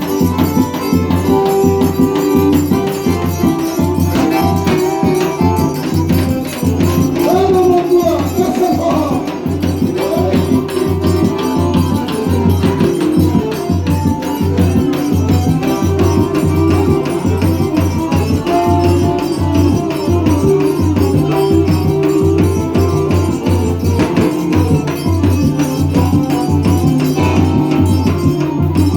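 Forró band music: accordion playing sustained chords and melody over a steady zabumba-style bass-drum beat and jingling percussion.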